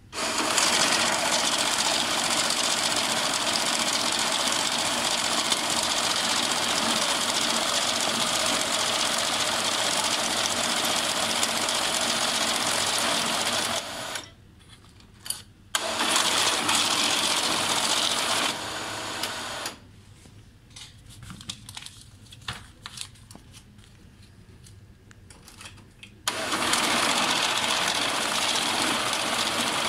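Toshiba IBS 200 banknote counting machine running, feeding and counting a stack of notes with a steady whirr. It stops briefly about 14 seconds in, and again for about six seconds from around 20 seconds with only scattered clicks, then starts counting again.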